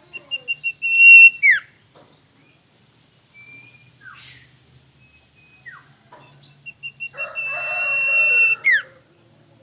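Male common iora (cipoh) singing, twice: short whistled beats run into a long steady high whistle that ends in a sharp falling note. A few short calls come between the two phrases, and a buzzy sound lies under the second.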